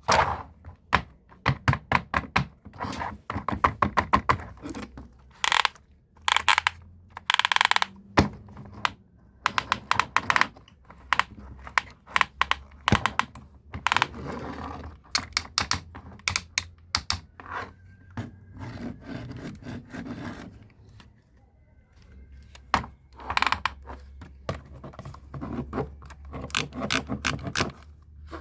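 Toy JCB construction vehicle and its packaging being unboxed and handled: irregular runs of sharp clicks and scrapes with occasional knocks, in clusters separated by short pauses.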